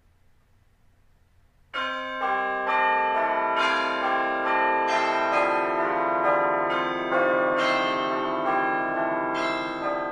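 Background music of chiming bells: a run of struck notes ringing over one another, starting suddenly about two seconds in after near silence and dying down near the end.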